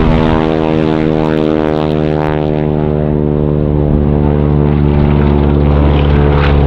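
Stearman biplane's radial engine and propeller droning steadily at high power during takeoff.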